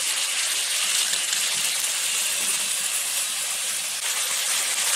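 Food frying in hot oil in a pan, a steady sizzling hiss.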